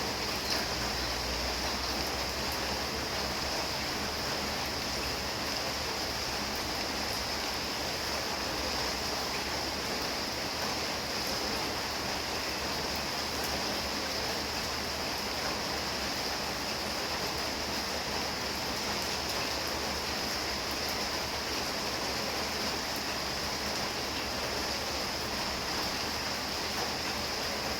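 Steady heavy rain falling, an even rushing hiss that holds at one level throughout.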